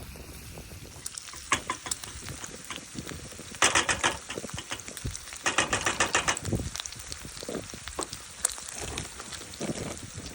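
Bacon frying in a pan, sizzling and crackling, with louder bursts of spattering about three and a half and five and a half seconds in.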